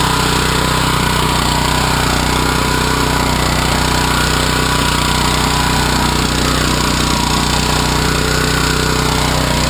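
AXO Garden two-wheel tractor's small petrol engine running steadily under load while its rear rototiller tines churn through garden soil.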